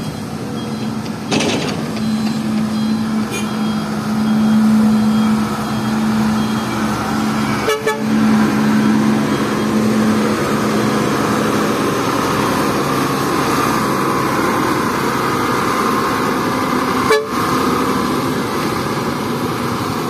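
Heavy diesel dump truck running as it backs up on a dirt road. A steady low horn-like tone sounds for several seconds in the first half. There is a brief knock about eight seconds in and another near the end.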